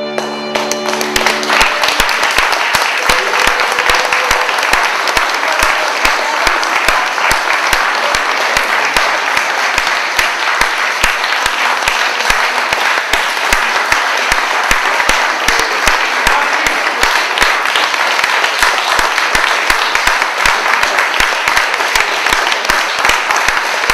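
An audience applauding steadily. Over the first couple of seconds, the string trio's last held chord dies away under the clapping.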